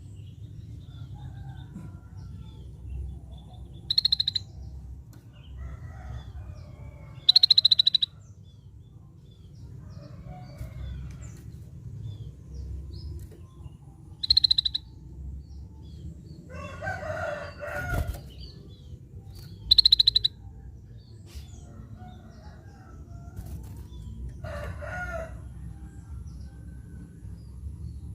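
Scaly-breasted bulbul (cucak bersisik) giving short, rapid, high trilled calls four times, with two longer, lower calls in between.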